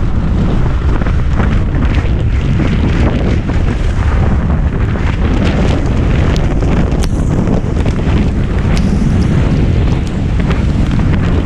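Loud wind buffeting the microphone of an action camera on an inflatable tube towed at speed across a lake, with water rushing under the tube and a few short slaps of spray against it.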